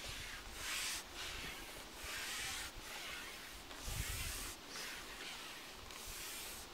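Carbon fishing pole sliding through the hands as it is fed out, a rasping hiss that comes in pushes of about a second with short breaks between them. A dull low knock about four seconds in.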